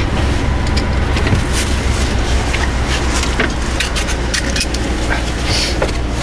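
Truck engine idling with a steady low hum, while a squeegee scrapes and squeaks across the windshield glass in short strokes.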